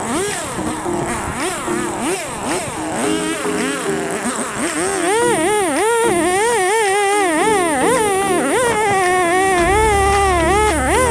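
Two-stroke chainsaw cutting through a dead log, its pitch rising and falling as the chain bites and frees, with the chain dull enough that it throws only fine sawdust. Background music with steady held notes runs underneath, and a deep bass comes in near the end.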